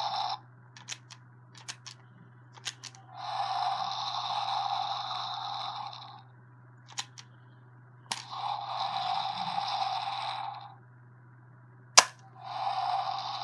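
Ben 10 Deluxe Omnitrix toy watch playing its electronic sound effects through its small speaker, set off by moving it, in three bursts of about three seconds each. Between the bursts come sharp plastic clicks from handling and pressing the toy, with one loud click near the end.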